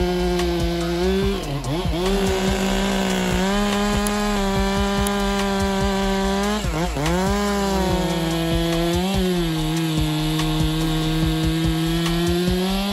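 Gasoline chainsaw running at full throttle while cutting wood. It holds a steady high engine note, and the pitch sags briefly about three times as the chain loads up in the cut, then recovers.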